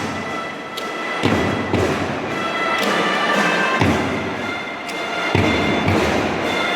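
An elementary-school drum band playing: held melody notes over heavy bass-drum strikes.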